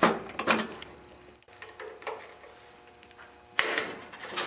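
Steel wrench clinking against the nut and bolts on a lawn tractor's starter motor: a few sharp metal clicks with a short ring shortly after the start, then a quick cluster of them near the end.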